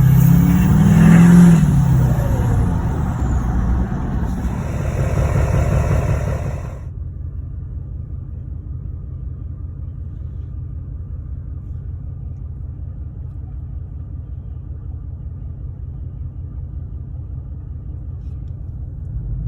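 LML Duramax 6.6-litre V8 turbo-diesel with a 5-inch exhaust, running with a brief rise and fall in engine pitch near the start. About 7 seconds in, the sound turns suddenly muffled, leaving a steady, very low exhaust drone.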